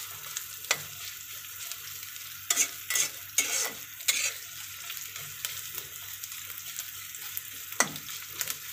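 Sliced onions and garlic sizzling in hot oil in a karai. A spatula scrapes and knocks against the pan several times as they are stirred.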